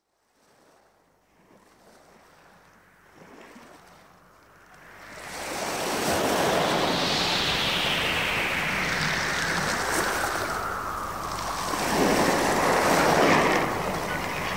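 Ocean surf: waves washing in, fading up from near silence over the first five seconds, with a falling hiss and then a second surge about twelve seconds in.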